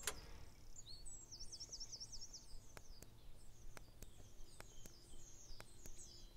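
Small birds chirping and twittering, faint. A click sounds at the start as the payphone handset is lifted, and a few light clicks follow later on as the number is dialled.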